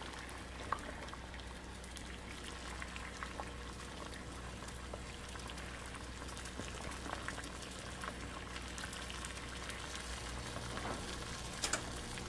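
Saucepan of water at a rolling boil, bubbling steadily with small pops. Two short clicks stand out, about a second in and near the end.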